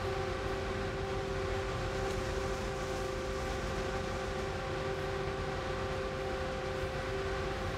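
Steady industrial machinery hum in a cardboard mill: two held tones over a low, even rumble.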